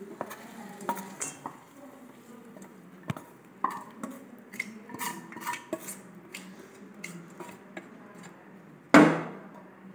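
Spatula scraping and tapping a nonstick frying pan while the fried tempering is tipped into a steel vessel of idli batter: scattered light scrapes and clinks, with one louder clank near the end.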